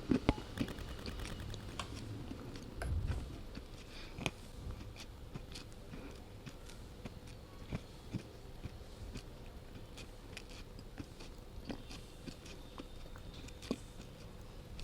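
A person chewing slate pencil, with sharp crunching clicks at irregular intervals, a burst of them at the start.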